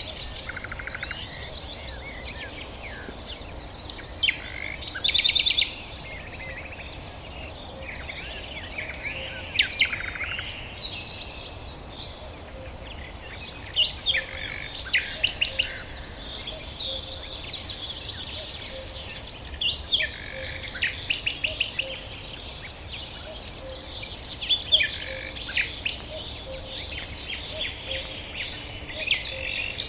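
Several small birds chirping and singing over one another, with quick trills and short repeated chirps, over a faint steady background hiss.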